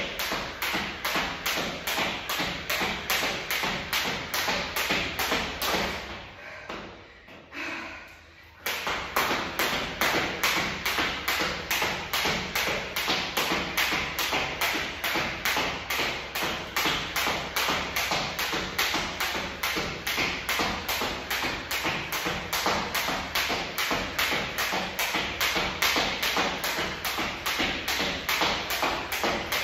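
Steady rhythmic thuds of a person's exercise on the floor, about three a second, stopping for a couple of seconds about six seconds in and then resuming.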